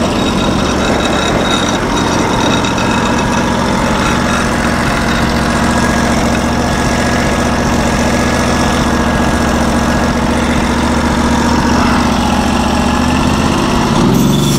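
Norwood portable band sawmill's gas engine running steadily under load as the band blade cuts along a log. Near the end the engine note shifts and the sound drops.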